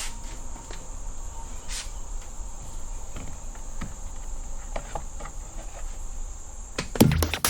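Steady high-pitched insect trill with a few faint clicks and taps; electronic music cuts in abruptly near the end.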